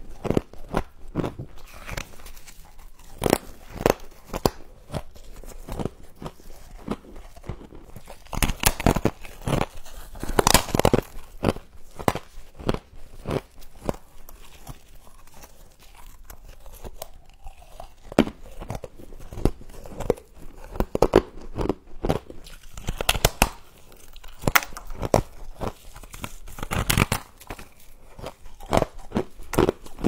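Humidifier-grown freezer frost being bitten and chewed close to the microphone: irregular crisp crunches and crackles, with a few louder clusters of bites.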